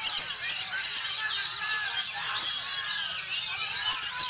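Many oriental magpie-robins (kacer) singing at once: a dense, continuous tangle of overlapping whistles, trills and sharp chirps.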